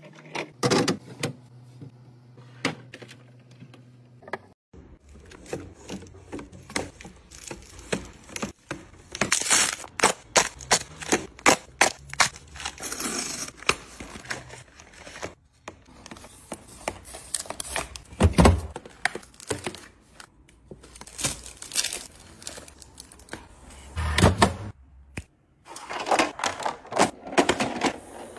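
Food containers and packaging being handled and set down while a fridge is restocked: a string of irregular plastic clicks, taps and knocks with some crinkling, and a few heavier thuds.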